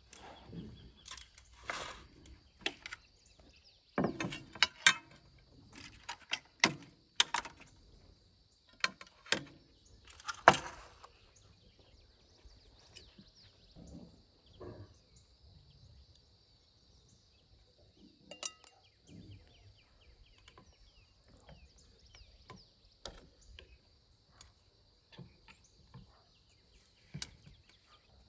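Metal skewers and tongs clinking and clattering against ceramic platters and each other as skewered meat is laid out. The clinks come thick and fast at first and thin out to occasional ones after about ten seconds.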